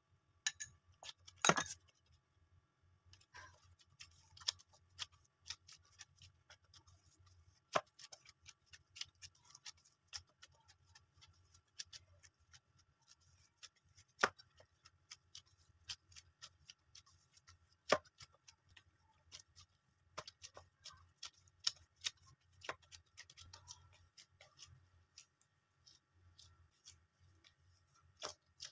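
Gloved hands rubbing and kneading moistened semolina in a stainless steel plate: scattered light clicks and taps of fingers and dough against the metal, with a louder knock about a second and a half in.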